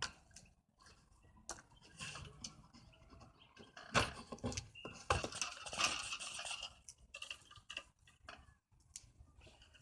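Irregular clicks, knocks and scraping from wire being worked through a homemade wire stripper. They are busiest and loudest about four to six seconds in.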